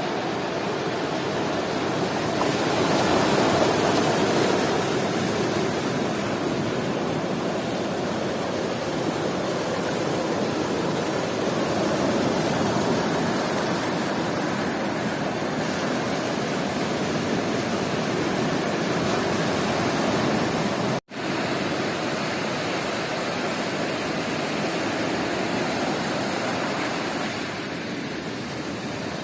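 Sea surf washing steadily onto a beach, in slow swells of rushing water. The sound cuts out for an instant about two-thirds of the way through.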